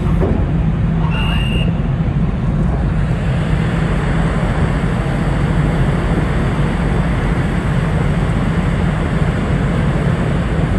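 Steady low drone of a large ferry's machinery running at the quay, with a constant hum under an even rumble. A short high whistle or beep sounds about a second in.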